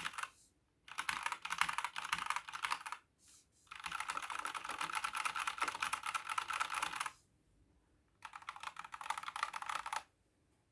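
Fast typing on an Epomaker GK96S mechanical keyboard with stock, unlubed Gateron Yellow linear switches and ABS keycaps, in three runs of rapid clacking separated by short pauses.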